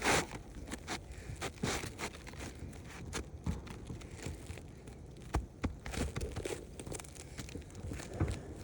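Scattered scrapes, crinkles and light taps from handling asphalt laminate roof shingles, with a sharper tap about five seconds in.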